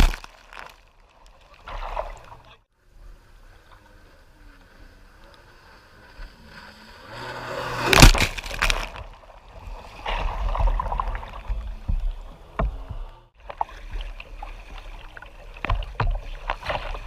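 A jet ski runs up close with a rising engine hum and throws a sheet of spray that hits with a loud crash about eight seconds in, after a similar hit right at the start. Between the hits, water sloshes and splashes around a small boat.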